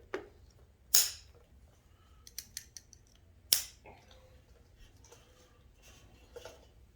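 Two loud, sharp snaps, about a second in and at about three and a half seconds, with a quick run of lighter clicks between them and a few faint ones later: hand work on small engine parts.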